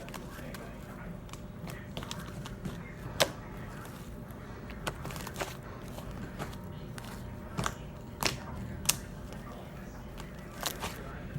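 Homemade shaving-cream slime being squeezed and stretched by hand, giving a scatter of sharp little clicks and pops at irregular moments over a steady low hum.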